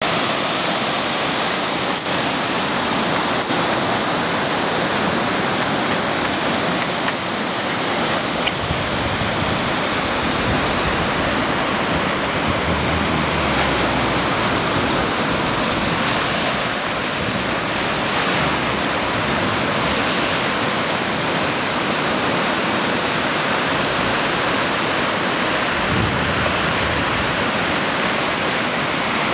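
Ocean surf breaking and washing up the beach: a steady rush of water, swelling louder as bigger waves break about halfway through.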